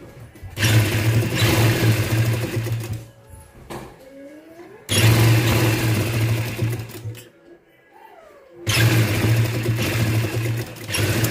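Domestic sewing machine stitching in three runs of about two to three seconds each, with short pauses between them.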